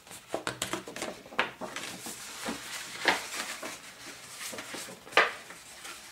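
Brown card being folded and creased by hand along scored lines: paper rustling, with several sharp crackles as the folds give, the loudest about five seconds in.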